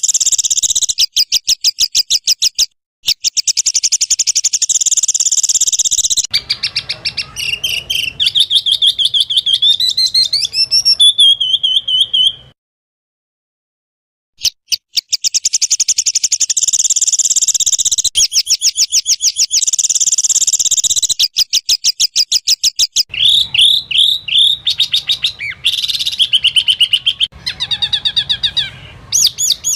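Songbird-tutoring (masteran) track of spliced bird songs. Fast, sharp, high notes repeat in rapid-fire series, then comes a warbling song of rising, gliding phrases. After a silent break of about two seconds near the middle, more rapid-fire note series and varied calls follow.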